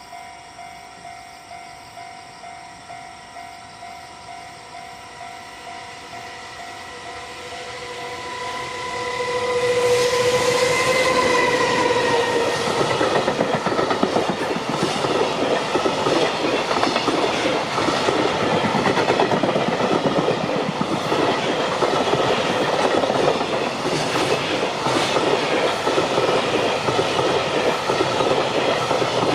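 A level-crossing bell rings in a steady pulsing beat while a JR Freight EF210 electric locomotive approaches, passing about ten seconds in with a tone that drops in pitch. After it, container and tank wagons roll past loudly, their wheels clattering in a regular rhythm over the rail joints.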